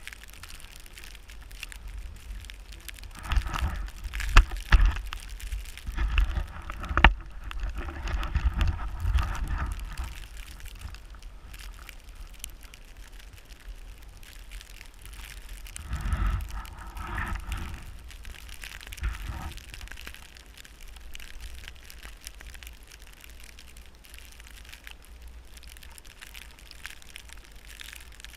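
Snowboard scraping and carving over snow, with wind buffeting the microphone as a low rumble. There are two louder stretches of a few seconds each, one near the start and one past the middle.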